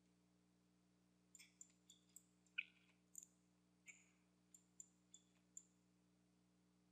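About a dozen faint, sharp clicks of a computer mouse, irregularly spaced and starting a little over a second in, against near-silent room tone with a faint steady hum.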